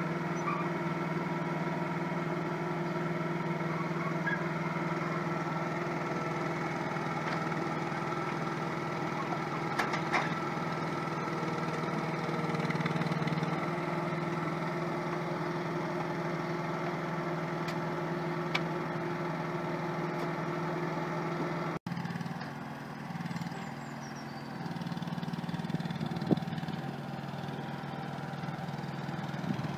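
Mini excavator's engine running steadily at an even idle-like pace, a constant low drone with a few faint knocks and scrapes from digging; it is quieter over the last several seconds.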